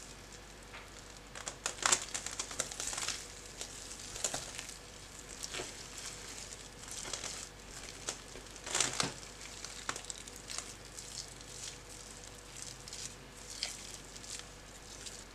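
Bare hands squishing and squeezing mashed potato, wet squelches and crackles at irregular moments, the loudest about two seconds in and again about nine seconds in.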